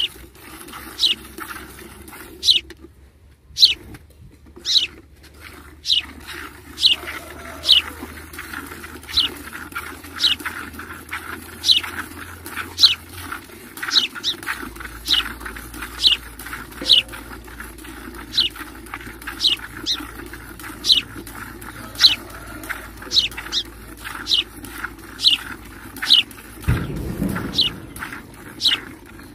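Streams of milk squirting from a cow's teats into a steel pail half full of frothy milk during hand milking: short sharp swishes in a steady rhythm, about one every three-quarters of a second, as the hands alternate.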